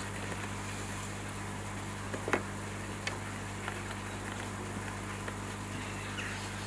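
A steady low hum, with a sharp click a little over two seconds in and a fainter click about a second later.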